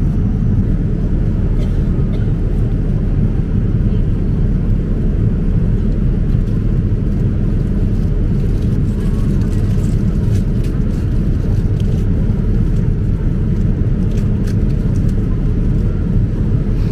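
Steady low drone of an airliner cabin in flight, the engine and airflow noise at an even level, with a few faint clicks.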